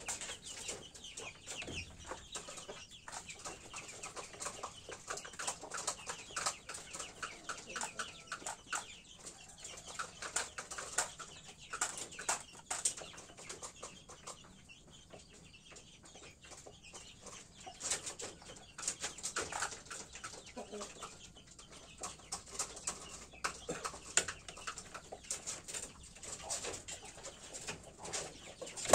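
Chickens clucking, with many quick clicking taps of a rooster's beak pecking feed from a metal tray; the clicking thins out for a few seconds around the middle.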